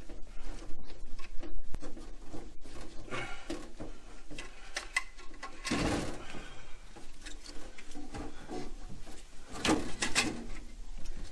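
Clicks, scrapes and rustles of hands working plastic hoses and fittings loose inside a tankless water heater, with a couple of louder knocks about six and ten seconds in.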